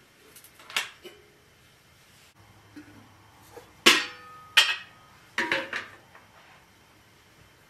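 Metal clanks and clatters as a burner grate is fitted onto a portable kerosene-type stove and a metal cooking pot is set down on it: a light click, then two loud clanks about half a second apart, then a quick run of smaller clatters.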